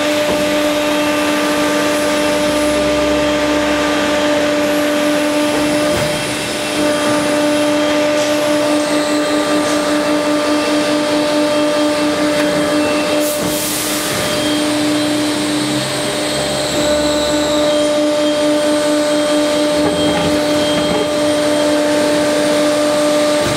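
Akyapak plate rolling machine running as its rolls bend a steel plate into a cylinder: a steady mechanical drone with a held tone that wavers at times. It dips briefly about six seconds in, and there is a sharp click about halfway through.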